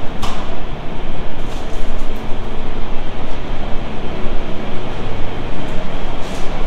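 Steady machine noise in a shop: an even, loud rumble with a low hum running throughout, with a couple of faint clicks.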